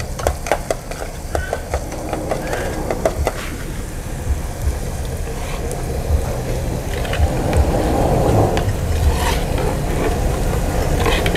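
Metal spatula and ladle stirring and scraping a wok of simmering garlic sauce on a gas burner, with quick clicks of the utensils against the pan in the first few seconds. A low rumble runs underneath.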